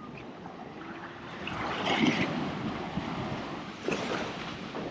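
Surf washing up on a sandy beach, one wave swelling to its loudest about two seconds in and then easing, with wind buffeting the microphone.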